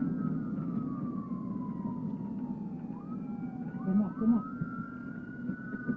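Police car siren wailing over road rumble: a slow downward sweep in pitch, then rising sweeps about three seconds in, with more than one siren tone overlapping.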